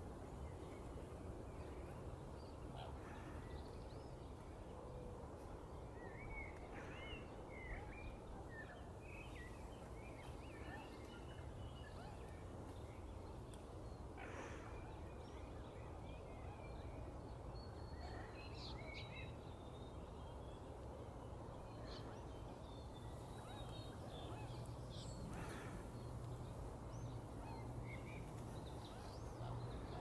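Steady low background rumble with faint, scattered short bird calls throughout.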